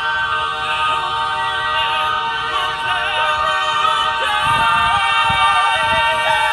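A cappella vocal ensemble, men and women, singing and holding a long sustained chord.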